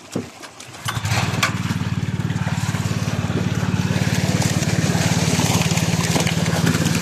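A small engine starts running about a second in and keeps up a steady, rapid chug, over the splashing of live fish flapping in a metal trough of water.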